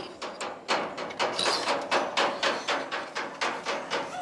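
A rapid, even series of sharp knocks or taps, about four a second.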